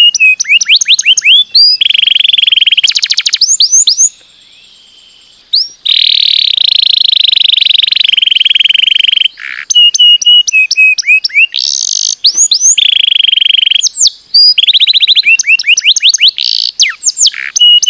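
Domestic canary singing: long runs of fast, high trills and quick upward-sweeping whistled notes, with a short lull about four seconds in.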